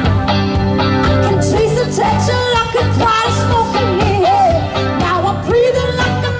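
Live band playing an upbeat groove with bass guitar and drums, a wavering sung or wordless vocal melody coming in about two seconds in.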